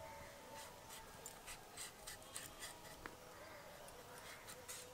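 Faint, irregular short scraping strokes as the green skin of a raw mango is shaved off against the curved steel blade of a boti.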